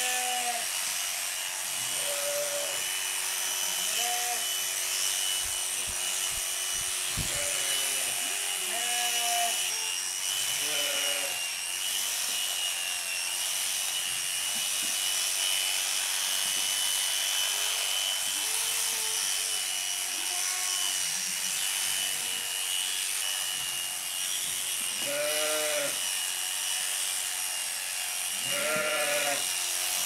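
Electric sheep shears buzzing steadily while a fleece is clipped off. Sheep and goats in the pen bleat again and again over the hum, with the loudest bleats near the end.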